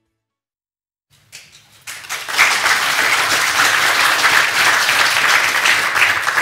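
Audience applauding. Scattered claps begin about a second in and swell within a second or so into full, steady applause.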